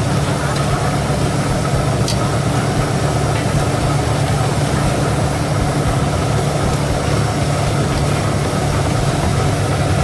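A steady low drone of a running engine or motor, even in level throughout, with a faint click about two seconds in.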